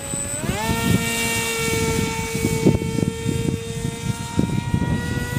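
Electric brushless motor and propeller of a small RC model biplane (1650 kV Blitz motor): the whine rises sharply as the throttle opens about half a second in, then holds steady. Gusty wind rumbles on the microphone underneath.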